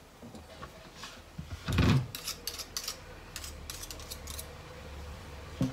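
Metal wire whisk and spoon knocking and clicking against a plastic mixing bowl as egg yolk is worked into creamed butter: one louder knock about two seconds in, then a run of light clicks.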